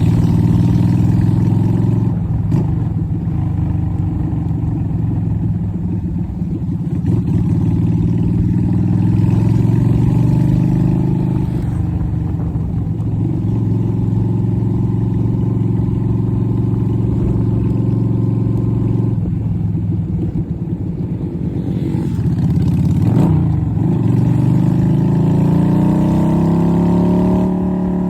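Yamaha Virago XV250's air-cooled V-twin running through a straight-through exhaust under way. The engine note falls and rises with throttle and gear changes, then climbs steadily near the end as the bike accelerates.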